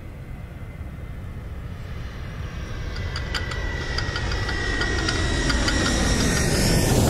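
Jet airliner flying over, its engine rumble and a steady high whine swelling steadily louder as it approaches.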